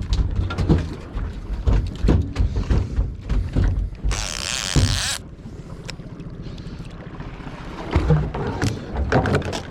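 Scattered knocks and thumps aboard a small fishing boat over a low steady rumble, with a rush of hiss lasting about a second, four seconds in.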